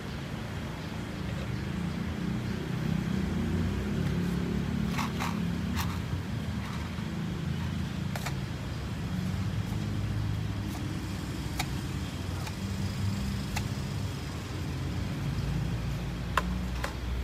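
Steady low rumble of road traffic, with a few sharp light clicks and taps scattered through it.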